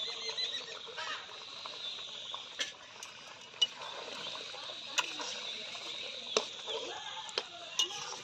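Steel spatula knocking and scraping against a metal kadai as simmering dal is stirred, a handful of sharp clicks spread through the stirring. Faint animal calls underneath.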